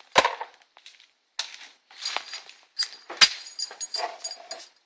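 Scattered clicks, rattles and light metallic clinks of hands handling plastic push-pin retainers and loose parts in a car's engine bay, with a sharp click just after the start and another a little past three seconds.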